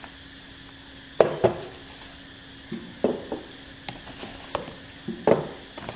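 Cylindrical 32650 lithium iron phosphate cells being taken out of a cardboard box and set down one at a time on a wooden tabletop, making about eight sharp knocks, a couple of them in quick pairs.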